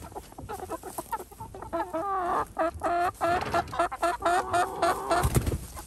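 A flock of young brown laying hens clucking, with many short calls overlapping and crowding together from about two seconds in. There is a low thump near the end.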